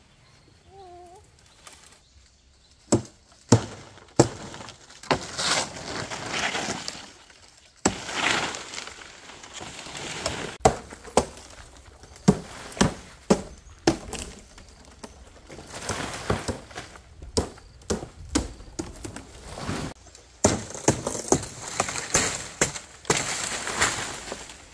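A blade chopping into stiff fan-palm frond stalks in a series of sharp, irregular hacks, starting about three seconds in, with the dry rustling and scraping of the big palm leaves as they are worked loose.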